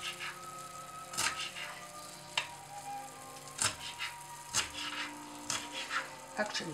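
A knife knocking on a cutting board as fresh parsley is chopped: sharp single strikes, irregular, about one a second, over a faint hiss.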